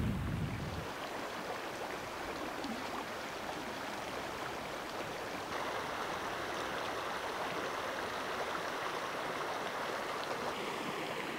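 Mountain creek water rushing and splashing steadily. A gust of wind buffets the microphone in the first second. About halfway through, the rush turns brighter and a little louder.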